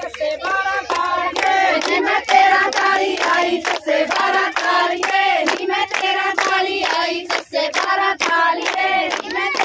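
Group of women singing a Punjabi boli together for giddha, with loud, rhythmic hand clapping in time, a couple of claps a second.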